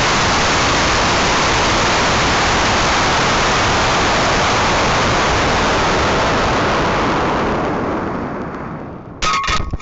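Loud, steady rushing hiss of air streaming past a high-power rocket's onboard camera in flight. It fades over the last couple of seconds, and a short burst of sharp knocks and rattles comes near the end.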